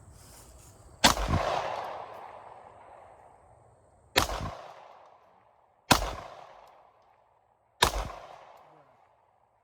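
Four pistol shots, unevenly spaced a couple of seconds apart, each ringing out in an echo that fades over a second or two.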